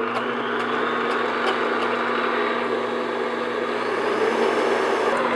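Stand mixer motor running steadily, its wire whisk beating heated egg whites and sugar in a stainless steel bowl as they whip into a Swiss meringue.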